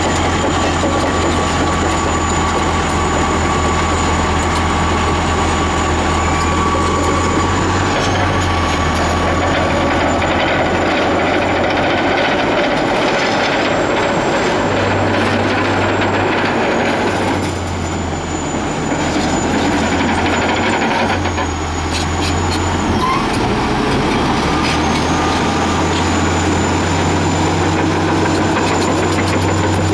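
Caterpillar D10T bulldozer's big diesel engine running close by. A deep low drone fades and returns a few times over a dense mechanical noise.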